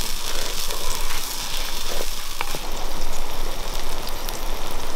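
Masala-and-tamarind curry base boiling in a clay pot, a steady bubbling sizzle. A few light clicks from a spatula stirring.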